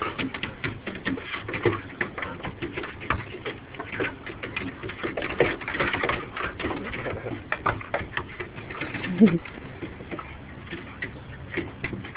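A dog and a fawn scuffling in play, with many quick clicks and taps throughout. Soft, low cooing sounds come in among them.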